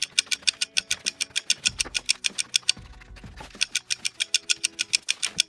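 Scissors snipping through thick paper in a fast, even run of sharp snips, about six a second, with faint background music underneath.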